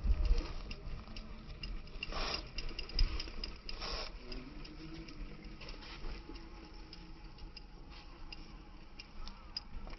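Light, irregular ticking and clicking from a bicycle held upright on its rear wheel and shifted about, with two brief rushes of noise about two and four seconds in.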